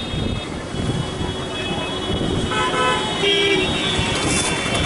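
Street traffic noise with a vehicle horn tooting twice in short blasts, a little past halfway through.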